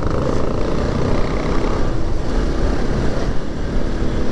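Motorcycle running in traffic, heard from the rider: steady engine drone with wind rumble on the microphone.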